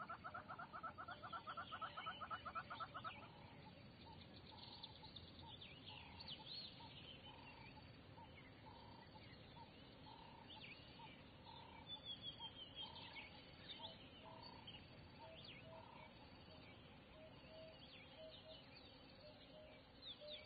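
Faint birdsong: a rapid trill for about the first three seconds, then a steady series of short repeated notes, a little under two a second, with lower notes joining later and scattered high chirps throughout.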